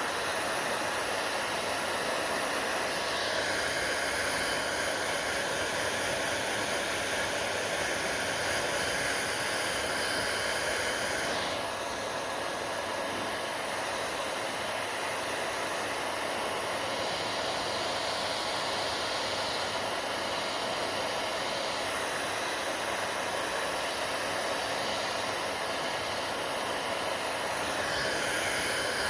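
Hair dryer running steadily with a loud airy rush. Its tone shifts a few times, most clearly a few seconds in and again about 11 seconds in.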